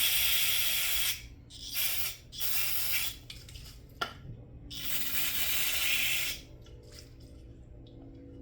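Aerosol carburetor cleaner spraying in four hissing bursts, the last and longest stopping about six seconds in, with a sharp click about four seconds in. The can is nearly empty and running out of aerosol.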